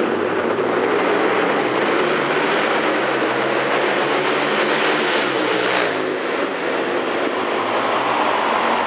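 Superbike engines running loud and echoing through a road tunnel, with one machine passing close about six seconds in, its pitch dropping as it goes by.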